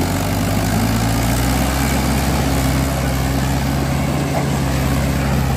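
Diesel engines of two Mahindra tractors running steadily under load as one tows the other, hitched to a loaded trolley, out of the mud.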